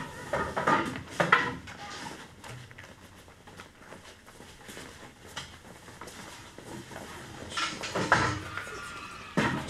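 Classroom clatter of pupils getting up and packing away: knocks and scrapes of desks, chairs and school things. There is a burst of knocks in the first second and a half, a quieter stretch, then more knocking and scraping near the end.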